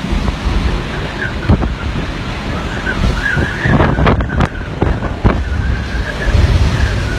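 Hurricane-force wind buffeting the microphone in a heavy, low rumble, with a faint wavering whistle over it. Several sharp knocks or bangs come in a cluster around the middle.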